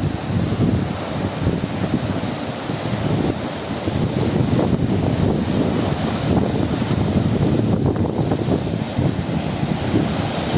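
Strong storm wind, up to 25 m/s, blowing hard across the microphone in a steady, rumbling rush, with heavy surf from the storm-driven sea beneath it.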